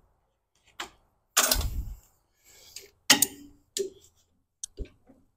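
Metal hand tools clanking and knocking as they are picked up and handled: about five separate clanks, the loudest and longest about a second and a half in.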